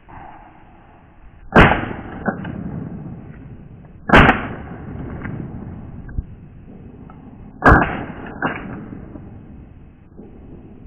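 Three loud shotgun shots at ducks overhead, about two and a half to three and a half seconds apart, each ringing on briefly, with fainter sharp cracks after the first and the third.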